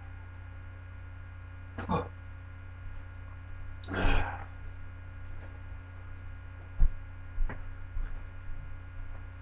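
Steady low electrical mains hum, broken by two short hissy noises about two and four seconds in, then a few sharp knocks or clicks, the loudest near seven seconds.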